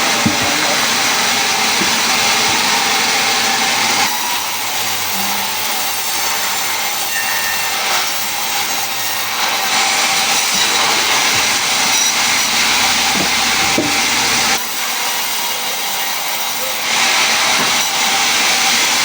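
Wood being cut by a woodworking tool: a steady rasping noise with abrupt changes in level about 4, 15 and 17 seconds in.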